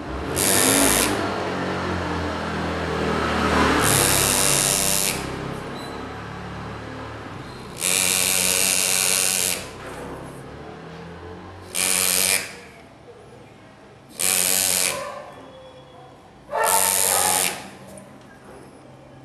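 Pneumatic engraver's handpiece buzzing in six short bursts, from about half a second to a second and a half each, as its graver cuts lines into a metal Harley-Davidson engine cover. A low steady hum sits underneath.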